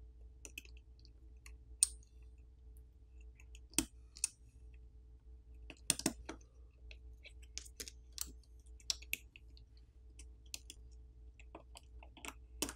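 Faint, irregular clicks and taps of a plastic pry tool and fingertips against a smartphone's main board and frame as the board is pried up and lifted out.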